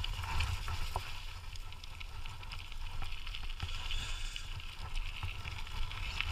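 Dog scooter rolling along a trail behind two pulling dogs: a steady low rumble from the wheels over the ground, with light hiss and a few small clicks and rattles.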